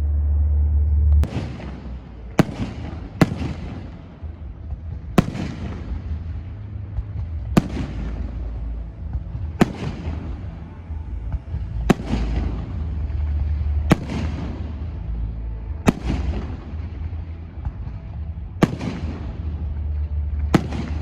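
A series of firework bangs: about eleven sharp reports, one every one to two and a half seconds, each trailing off in an echo, over a steady low rumble.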